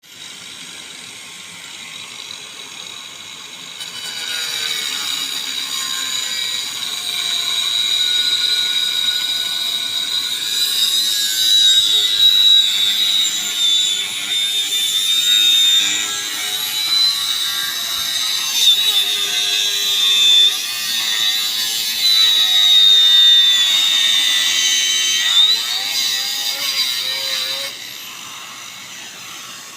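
Angle grinder cutting a pipe: about four seconds in the disc bites and a loud, high wavering screech runs steadily for over twenty seconds, then the level drops near the end as the cut stops.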